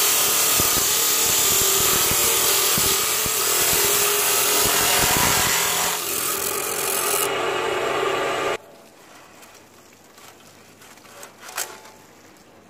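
Homemade abrasive chop saw's cut-off wheel grinding through a clamped bundle of thin steel rods: a loud, steady grinding hiss. It cuts off suddenly about eight and a half seconds in, leaving quiet with one faint tap near the end.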